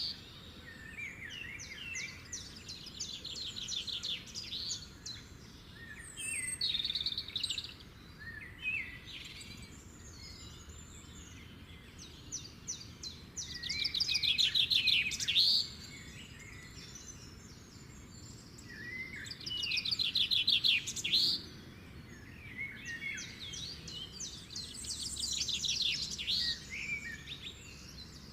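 Sparrows chirping in bursts of rapid, high chirps, several birds at once, loudest around the middle and again about two-thirds through.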